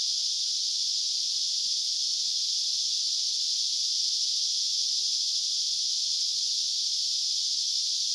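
A dense insect chorus: an unbroken, high-pitched buzz.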